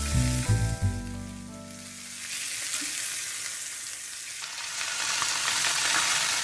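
Strips of pork belly frying in a nonstick pan, a steady sizzle that swells a little toward the end. Background music plays over the first two seconds and fades out.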